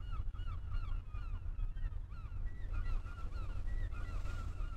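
A flock of birds calling: many short, overlapping chirping calls repeating throughout over a steady low rumble. A brief soft rustle comes near the end.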